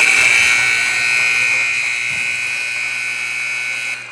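Gym scoreboard buzzer sounding the end of the game as the clock runs out: one long, loud electric buzz that starts suddenly and cuts off after about four seconds.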